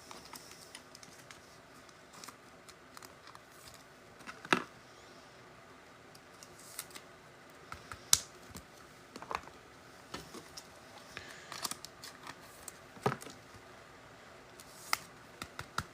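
Trading cards and foil packs being handled on a table: scattered light clicks, taps and soft rustles, the sharpest tap about four and a half seconds in.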